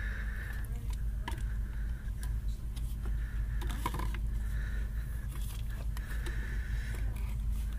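Hard plastic bubble-solution bottles being handled, lifted off a metal store shelf and set down on the floor: scattered clicks and knocks over a steady low hum.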